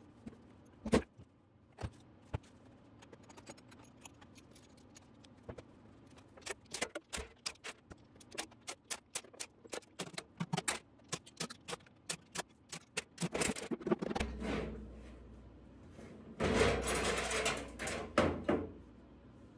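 Light metallic clicks and clinks as the oil pan bolts are taken out and handled, then rough scraping and rustling as the oil pan comes off the small-block V8 and is set down on the metal cart.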